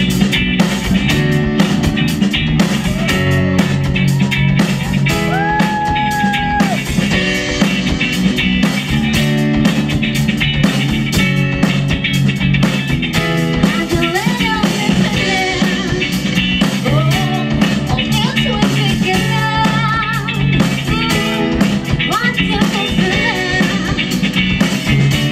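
Live rock band playing loudly: electric guitar over bass and drum kit, with held, bending melody notes on top.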